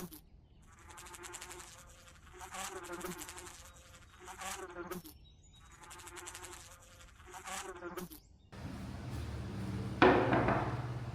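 Bees buzzing in swells that come and go about every two seconds. After about eight seconds the buzzing cuts off, giving way to a rougher background noise with a single loud knock near the end.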